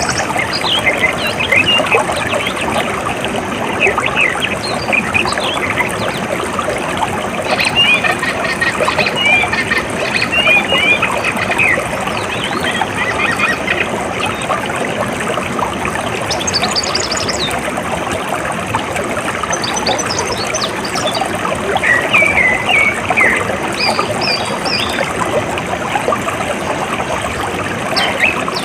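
Steady flowing, trickling water, with birds calling over it in short chirps that come in several clusters.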